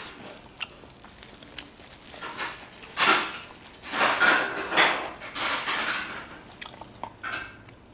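Steamed king crab legs being broken apart by hand in plastic gloves: crunching shell and crinkling glove plastic in bursts, one about three seconds in and a run of them between about four and six and a half seconds.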